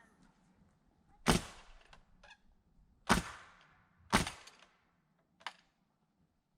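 Nails being driven into framing lumber: three loud, sharp cracks spaced about one to two seconds apart, each with a short ring, and a couple of fainter knocks between.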